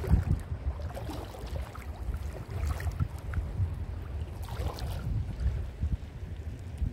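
Gusty wind rumbling on the microphone, with a few short, soft noises over it about three and four and a half seconds in.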